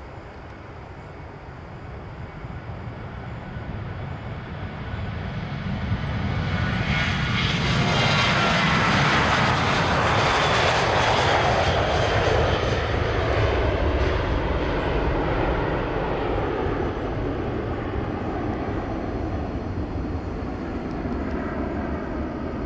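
A Boeing 737-800's twin CFM56-7B turbofan engines at takeoff power as the airliner rolls down the runway, lifts off and climbs away. The sound builds over the first several seconds and is loudest about ten seconds in, a whine over a deep rumble, then slowly fades as the jet climbs out.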